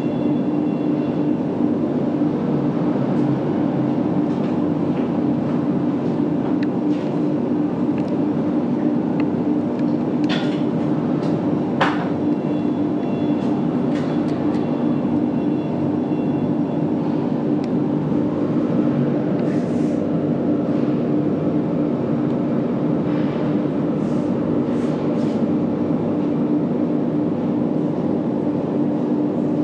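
A steady, even background drone with a constant low hum, like a running machine or vehicle. Two light clicks come about ten and twelve seconds in.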